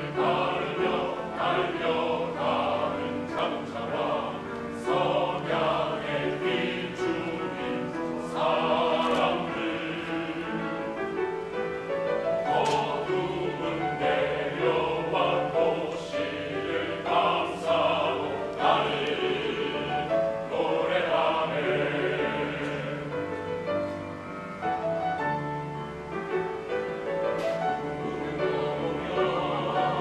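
Mixed choir of men's and women's voices singing in harmony, with grand piano accompaniment.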